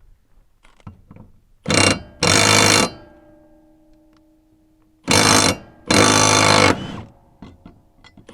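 Impact wrench hammering loose the 13/16 blade bolts on an Exmark Radius zero-turn mower deck: four loud rattling bursts in two pairs, a short burst then a longer one each time, about three seconds apart.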